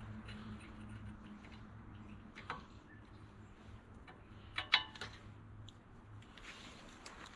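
Hand tools working on tractor bolts and sheet metal: scattered metallic clicks and clinks, the loudest a ringing clink a little under five seconds in, over a low steady hum that stops about six seconds in.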